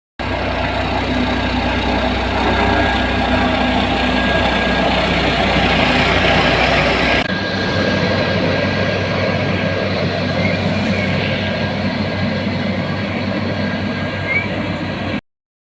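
Heavy road-construction machinery running steadily with a diesel-engine rumble; the deepest part of the rumble drops away about seven seconds in.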